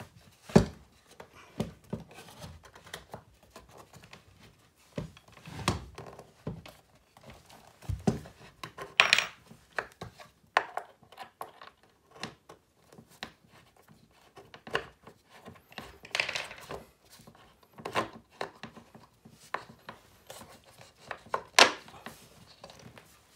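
Irregular clicks, scrapes and knocks as a metal carriage bolt is worked by hand into a hole through a wooden table leg and frame, with several louder knocks among them.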